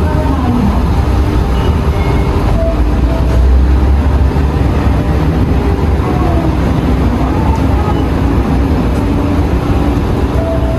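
Steady low rumble of passing vehicles, swelling briefly a few seconds in.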